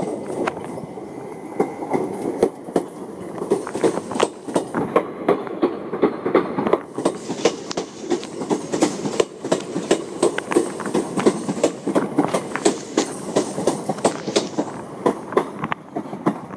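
Electric train pulling out of the station, its wheels clicking and clattering over rail joints and points in a quick irregular run of knocks over a steady rumble.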